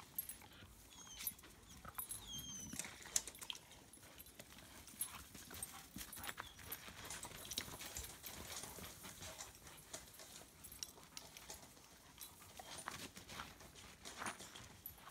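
Dogs tussling over a stick and running on dry dirt: faint scattered paw scuffs and patters, with two short high squeaks about one and two and a half seconds in.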